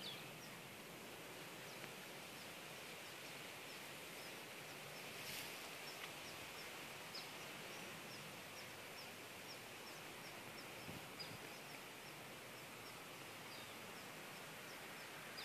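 Quiet outdoor ambience: a steady low hiss with a faint, short high chirp repeated about twice a second, and a brief rustle about five seconds in.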